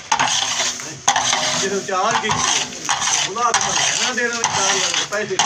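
A spatula scraping and scooping thick, fully reduced milk (khoya) out of a large pan in repeated rough strokes, with a sizzle from the hot pan.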